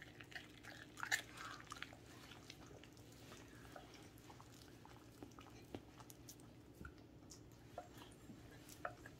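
Welsh corgi licking and gnawing at a whole raw chicken: faint wet mouth clicks and small bites, a cluster about a second in and again near the end, with quieter licking between.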